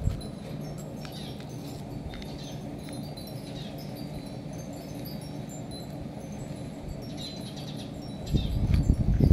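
Wind chimes tinkling now and then over a steady low hum, with a louder low rumble starting about a second before the end.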